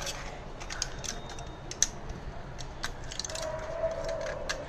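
A run of light, irregular clicks and taps, like small hard objects being handled, with a faint held hum for about a second near the end.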